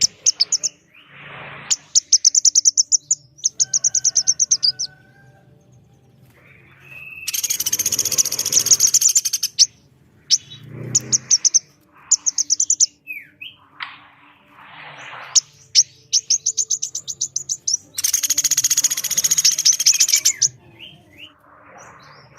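Recorded calls of a common flameback woodpecker and a female brown-throated sunbird, mixed together. They come as repeated fast rattles of high notes, twice broken by a long, loud, harsh burst of calling.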